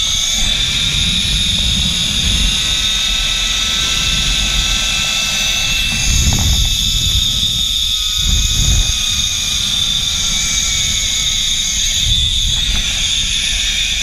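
Zipline trolley pulleys running along the steel cable, a steady high whine that slowly falls in pitch, with wind rushing over the helmet camera's microphone, heavier twice about halfway through.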